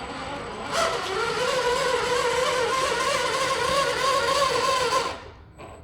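Redcat Gen 8 RC crawler's electric motor and geared drivetrain, with Treal overdrive front portal gears fitted, whining steadily as the truck drives a tight turn. It gets louder just under a second in and stops about five seconds in.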